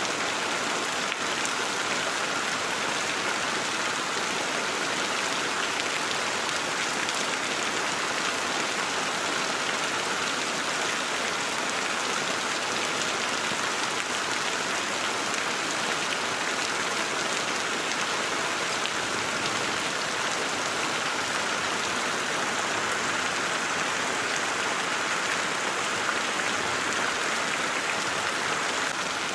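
Heavy rain falling steadily on broad leaves and wet ground, a dense, even hiss of drops that keeps up without a break.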